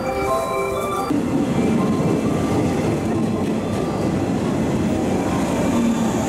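Background music ends about a second in, giving way to a local train running on the rails, a steady, fairly loud noise.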